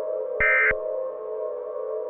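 A short burst of Emergency Alert System SAME digital data tones, the end-of-message code that closes an alert, screeches out about half a second in. It plays over a steady ambient synthesizer drone.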